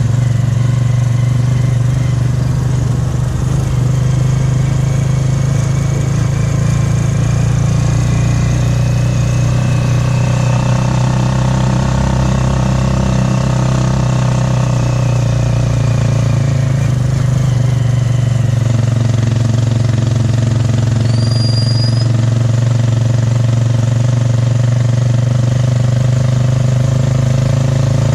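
A motorcycle-powered tricycle's engine running steadily under way, heard from inside the sidecar as a loud, even low drone.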